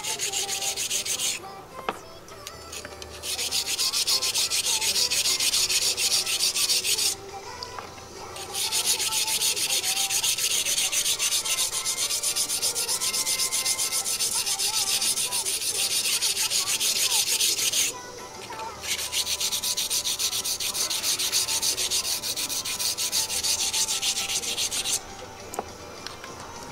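Rusty yanagiba sashimi-knife blade being ground on a coarse whetstone in rapid, even back-and-forth strokes: a wet, gritty scraping, in four bouts broken by short pauses, as deep rust is worked off the steel.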